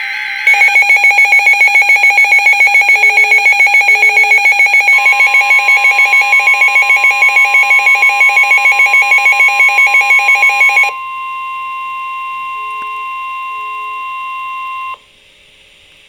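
Emergency Alert System alert tones: a loud, rapidly pulsing electronic alarm beep for about ten seconds. About five seconds in, a steady single tone joins it, the 1050 Hz NOAA Weather Radio warning alarm. That tone carries on alone after the beeping stops and cuts off about a second before the end.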